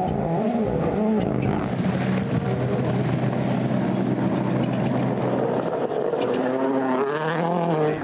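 WRC Rally1 cars' 1.6-litre turbocharged four-cylinder engines running hard on a gravel stage, revs rising and falling with the gear changes, with a long steady pull in the middle and climbing revs near the end.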